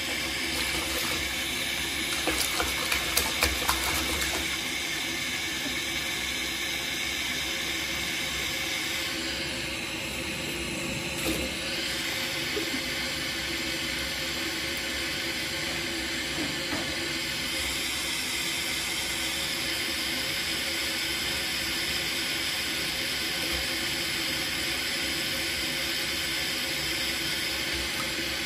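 Bathtub faucet running a steady stream into shallow water in the tub. A quick run of about six splashes comes about two to four seconds in, with one more near the middle, as the Savannah cat smacks at the water.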